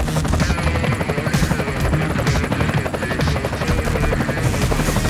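Electronic dance music with a fast, chopping pulse in the bass.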